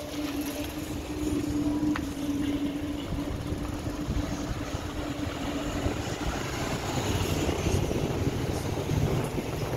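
Street traffic: a car's engine hums steadily, then motor scooters and motorcycles drive past close by, growing louder toward the end.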